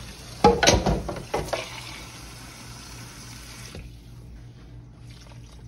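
Water running steadily as more water is added to the pot of turkey wings, cutting off about four seconds in. A few sharp knocks sound about half a second to a second and a half in.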